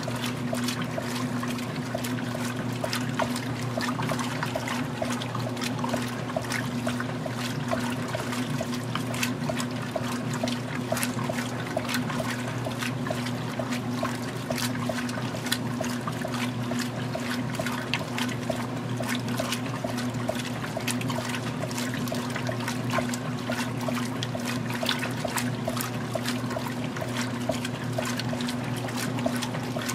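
Magic Chef 20-pound top-load washer agitating a medium mixed load in the wash stage: water sloshing and splashing steadily over a constant hum from the drive motor.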